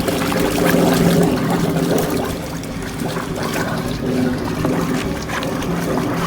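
Water rushing through a drain pipe, loud and steady, with a steady mechanical hum underneath.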